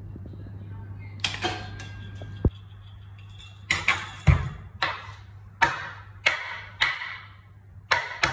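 Kitchen knife slicing a raw potato on a wooden cutting board: a sharp knock every two-thirds of a second or so, with one heavier thud about four seconds in. Under the first two and a half seconds a low hum runs and then cuts off suddenly.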